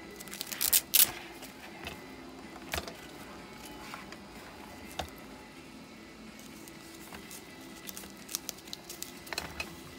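Handling noise from a replica M50 gas mask: its fabric straps and plastic parts rustling, scraping and clicking as they are turned over. A sharp cluster of scrapes comes about a second in, and a quick run of small clicks near the end.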